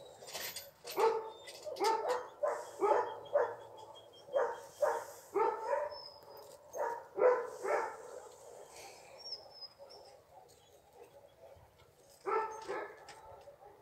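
Dog barking in short repeated barks, about two a second for several seconds, then a pause and two more barks near the end.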